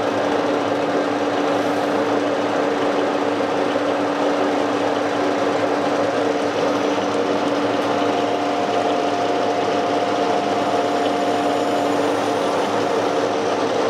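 Metal lathe running steadily with a steel ring spinning in its chuck: an even machine noise with a few steady tones, and a higher tone joining a little past halfway.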